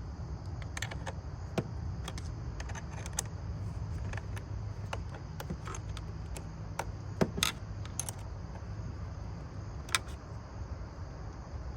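Scattered metallic clicks and clinks of hand tools and battery terminal hardware while a car battery is being unbolted and taken off, over a steady low rumble.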